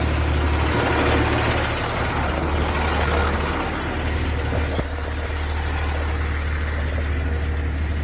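A truck engine running steadily, with wind and handling noise on the microphone as the camera is carried quickly.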